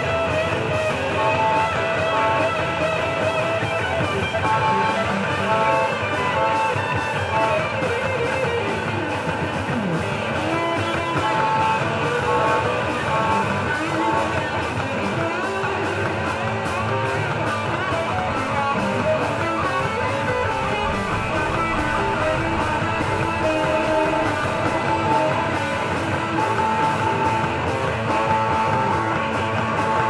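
Live psychedelic rock band playing: electric guitars strumming over a steady drum beat, loud and dense throughout.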